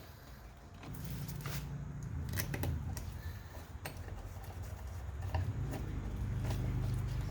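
Scattered clicks and knocks of parts and fasteners being handled, over a low steady hum that comes in about a second in.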